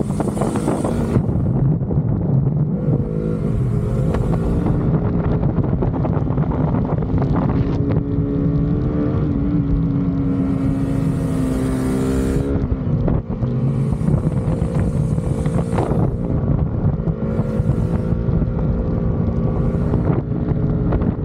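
Motorcycle engine running at road speed, its note climbing steadily from about eight seconds in and then dropping sharply near the middle. Wind noise on the microphone comes and goes.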